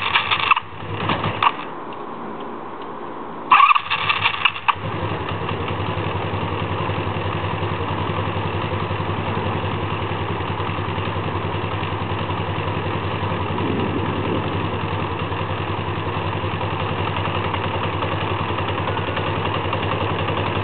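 Honda V65 Magna's V4 engine being cranked on the starter in short bursts, then catching about five seconds in and running steadily on part choke. It is a hard-starting engine.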